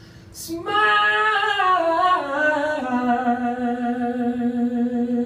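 A singer's voice comes in under a second in with a slow run that falls in pitch, then settles into one long held note.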